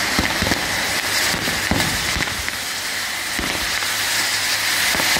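Ground fireworks going off at close range: a steady hiss with dense, rapid crackling and pops.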